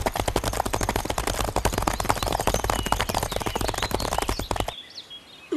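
Galloping horses as a cartoon sound effect: a fast, dense clatter of hoofbeats over a low rumble that stops abruptly near the end. Faint birdsong follows.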